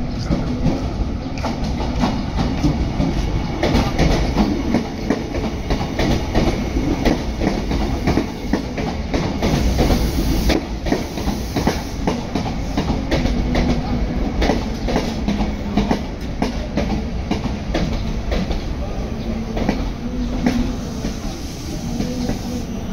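A train passing, its wheels clattering over the rail joints in a dense, steady run of clicks over a continuous rumble.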